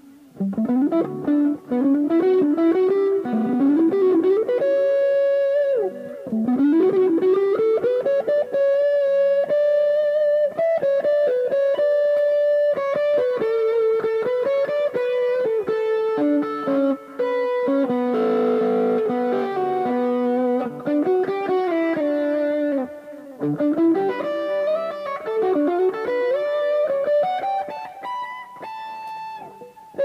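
1970s Japanese-made Joodee JLP-55 Les Paul–style electric guitar playing a single-note lead melody, with sustained notes and string bends that slide the pitch up and down.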